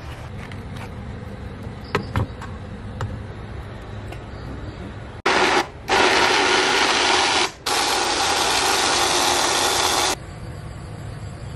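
A couple of short knocks, then an electric countertop blender running loud and steady as it purées boiled kaffir limes. It stops briefly twice and then cuts off about five seconds after starting.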